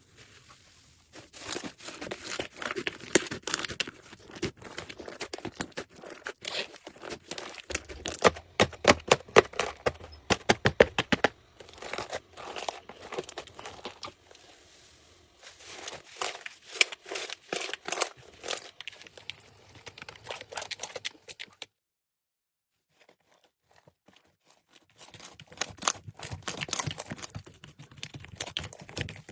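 Slime being squeezed and pressed by hand, giving rapid sticky pops and crackles in bursts, with a couple of seconds of silence about three quarters of the way through.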